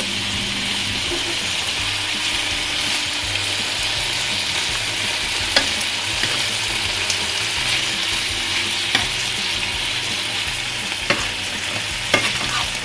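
Pieces of beef steak and green pepper sizzling steadily in a hot frying pan as the meat gives up its juices and fat. A few sharp clicks of metal tongs against the pan as the pieces are turned.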